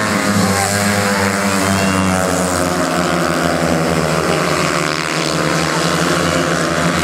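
Several 350cc junior speedway solo motorcycles racing together on a dirt oval, engines running hard with their notes overlapping and pitch shifting as the riders slide through the bend.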